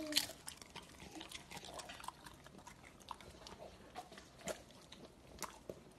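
Labrador retriever eating a piece of bacon: faint, irregular clicks and smacks of chewing and licking.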